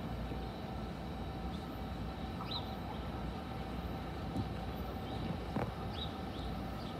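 A New Jersey Transit commuter train of bi-level coaches approaching, a steady low rumble with a faint steady tone above it. A few short bird chirps come through about two and a half and six seconds in.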